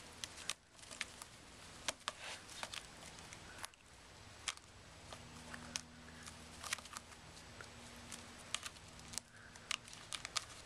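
Irregular sharp scratches and clicks of a kitten clawing and biting at a dangled sisal rope toy.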